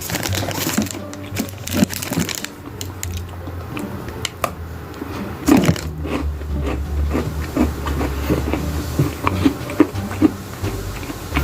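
Close-up chewing of a hard, very crunchy Christmas cookie: irregular crunches and clicks from the mouth, over a steady low hum.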